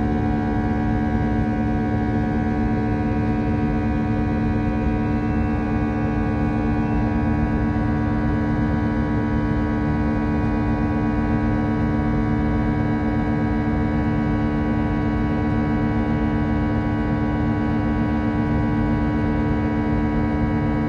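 Airbus A320 jet engines running during the climb, heard inside the cabin near the front: a steady low hum with several held tones in it and no change in pitch.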